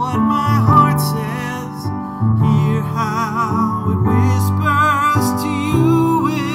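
A man singing a song with vibrato, holding each note about a second, while accompanying himself on a grand piano with sustained chords.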